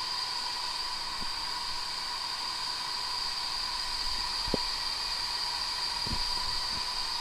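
Large air compressor running steadily, a loud hiss with a steady high whine through it. Two or three faint knocks come about halfway through.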